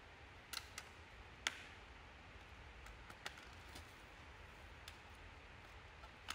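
Scattered sharp plastic clicks and snaps as the black plastic top cover of a lithium-ion battery module is unclipped and lifted off. The loudest snap comes about a second and a half in.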